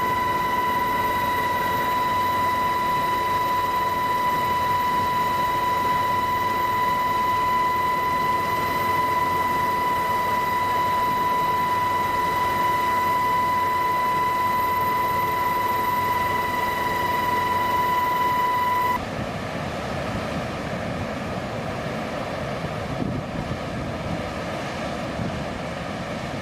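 On-board noise of the aircraft carrying the camera: a steady engine rush with a high, steady whine. About 19 s in the whine cuts off suddenly, leaving a slightly quieter, rougher rumble.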